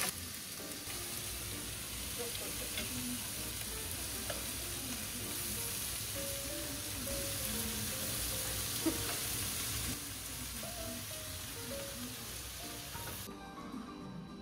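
Cabbage stir-frying in oil in a pan, a steady sizzle with a few small knocks. The sizzle cuts off suddenly near the end.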